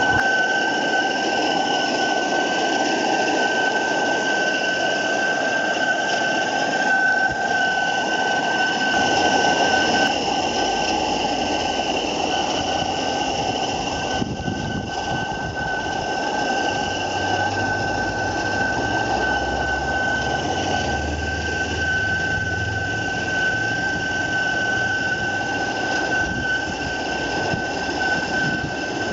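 Maxitrak 3/4-inch scale Allchin live-steam traction engine, gas-fired through a single-flue burner, running under steam: a steady hiss with a high, even whistling tone.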